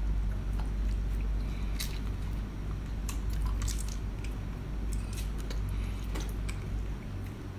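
A person chewing and biting seafood close to the microphone: wet, squishy mouth sounds with irregular small clicks and crackles, over a steady low hum.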